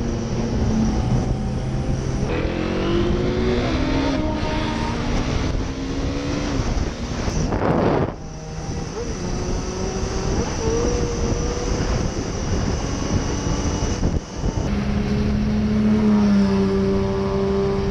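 Motorcycle engine heard from on board under hard acceleration, its pitch climbing and dropping back several times as it shifts up through the gears, over constant wind rush on the camera microphone. Near the end the engine runs at a steadier pitch.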